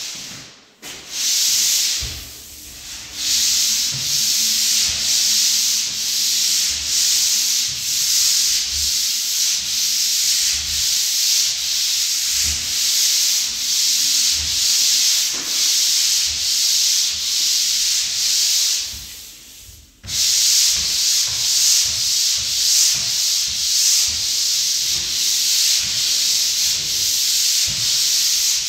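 Drywall pole sander rasping back and forth over dried joint compound on a drywall ceiling, a steady rhythm of sanding strokes. The strokes stop briefly just after the start and again about two-thirds of the way through, then carry on.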